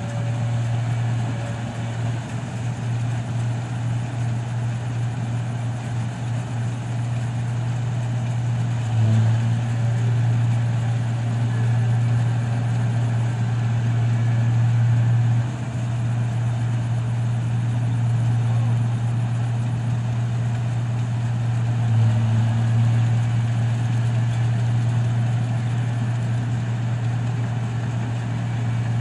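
New Holland combine harvester's diesel engine and threshing machinery running as it harvests rice: a steady low drone, dipping briefly about fifteen seconds in.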